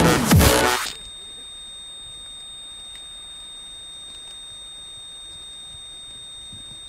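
Dubstep music stops abruptly about a second in, leaving a faint steady high-pitched whine over light hiss.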